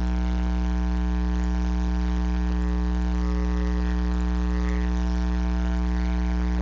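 Loud, steady electrical mains hum: a low drone with a buzzing stack of overtones that does not change.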